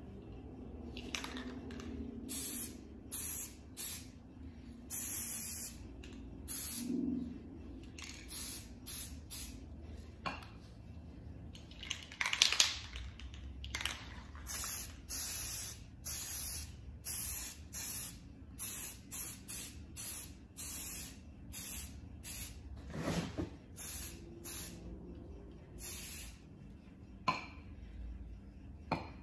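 Rust-Oleum aerosol spray paint can spraying in many short hissing bursts, each a second or less, as a camouflage pattern is dabbed on freehand. A few sharp knocks fall between the bursts.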